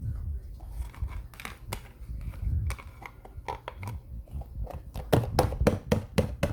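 Slime being squeezed and worked by hand, giving short wet clicks and pops over low handling noise, with a quick run of pops from about five seconds in.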